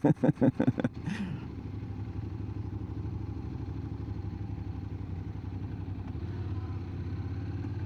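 Honda NC750 DCT parallel-twin motorcycle engine running steadily while riding, a low even hum with some road and wind noise.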